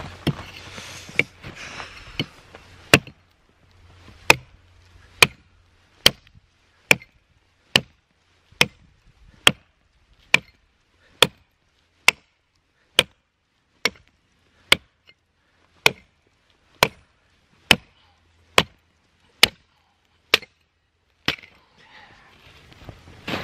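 Axe chopping and splitting a birch log: a steady series of sharp, separate strikes about one a second, roughly twenty in all. A rustling noise sits under the first few strikes.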